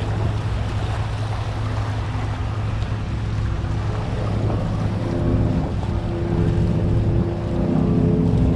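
Boat motor running steadily under wind noise and churning water, with a higher engine tone joining in about halfway through.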